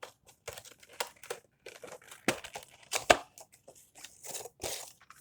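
Packaging being handled: irregular crinkling and crackling, with a couple of sharper knocks about two and three seconds in.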